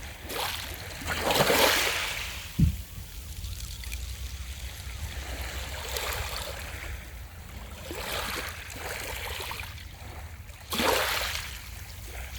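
Small ocean waves breaking and washing up the beach, each wash a swell of hiss that fades away, the strongest about a second and a half in and again near the end. A steady low rumble runs underneath, with one brief low thump a little under three seconds in.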